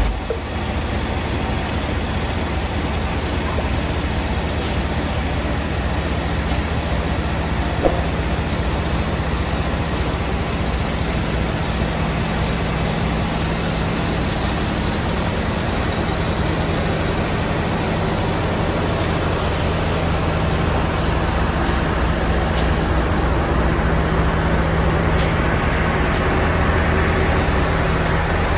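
D19E diesel-electric locomotive pulling a passenger train away from a station: its diesel engine running as a steady low drone. The drone grows slightly louder in the second half as the coaches roll past.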